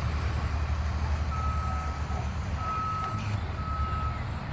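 A reversing alarm beeping, a single steady tone about once a second, starting a little over a second in, over a low steady rumble.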